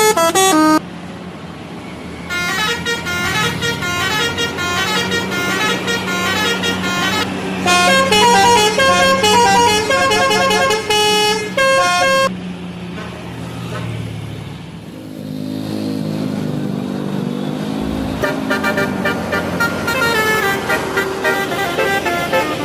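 Indonesian bus 'telolet' musical horns playing quick runs of stepped notes over a running bus engine. The horn runs fall in two long stretches, with a gap in the middle where the engine is heard rising in pitch.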